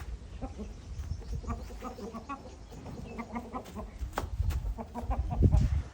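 Chickens clucking in short, scattered calls, with a low rumble about five seconds in.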